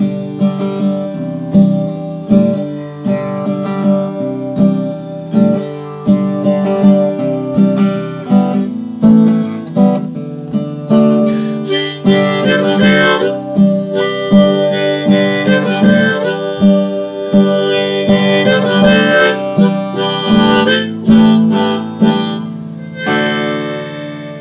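Acoustic guitar strummed in a steady rhythm while a harmonica in a neck rack plays the melody over it, an instrumental folk song intro. The harmonica grows louder about halfway through.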